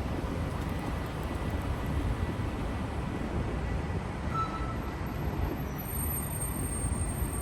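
Steady low rumble of city street noise, mostly vehicle traffic, with no single event standing out.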